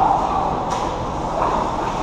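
Ice hockey play close to the goal: skate blades scraping the ice over steady rink noise, with two short sharp clacks of stick or puck.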